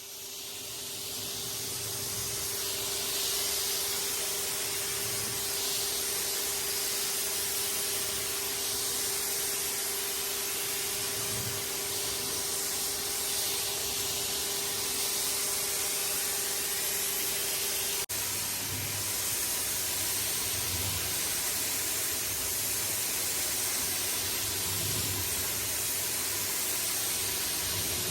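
Spray from a 1450 psi (100 bar) home pressure washer jetting water onto a carpet or rug mat. It is a steady, even hiss, with a momentary break about two-thirds of the way through.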